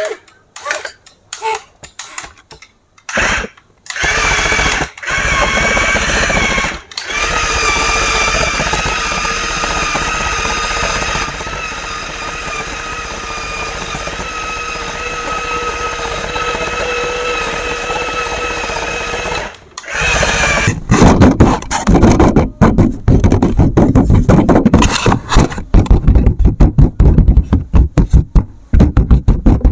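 Small electric motor of a remote-control toy running with a steady whine, cutting out briefly a couple of times. About twenty seconds in it gives way to louder, choppy rattling and clattering that keeps stopping and starting.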